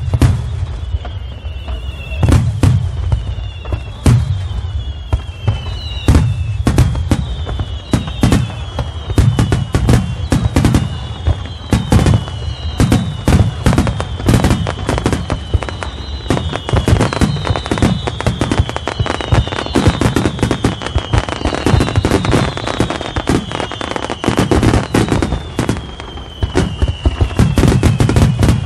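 Star mine fireworks barrage: a rapid, unbroken string of shell bursts and booms with a deep rumble. High falling whistles repeat over and over through the bursts.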